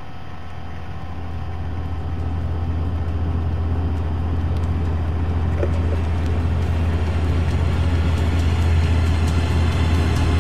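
Laid-on background soundtrack: a steady low drone that grows gradually louder, with a hissing wash rising over it.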